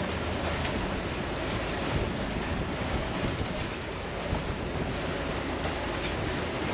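Steady wash of wind and sea around a sailing catamaran's helm station, with wind buffeting the microphone.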